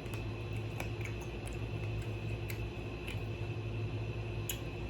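Chewing crispy fried chicken, with a few faint, sharp crunching clicks spread through it, over a steady low hum.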